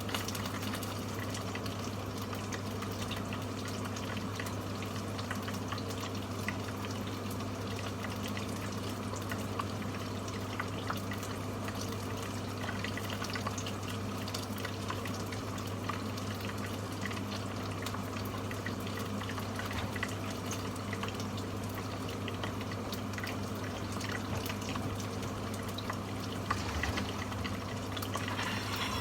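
Chicken pieces deep-frying in hot oil: a steady crackling sizzle over a constant low hum.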